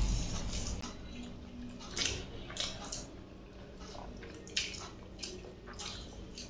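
Eating sounds: fingers squishing and mixing rice with chicken curry on steel plates, with chewing, in a few short soft bursts.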